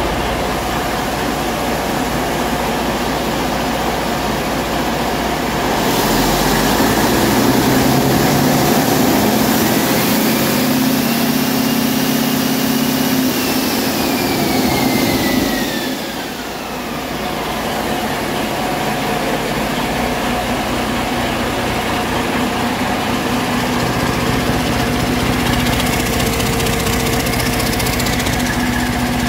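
Detroit Diesel DD15 inline-six turbo diesel idling, then revved up about six seconds in and held for roughly ten seconds, a turbo whistle rising and then falling, before it drops back to a steady idle.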